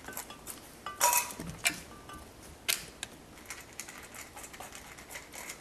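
Irregular light metallic clicks and clinks, with a brief ringing tone about a second in.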